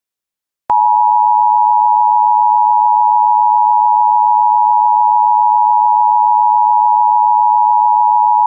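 Emergency Alert System two-tone attention signal: two steady sine tones sounded together. It starts abruptly about a second in after a brief silence and holds unchanged.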